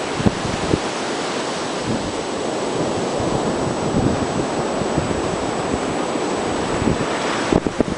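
Wind buffeting the microphone in irregular gusts over a steady rush of Baltic Sea surf.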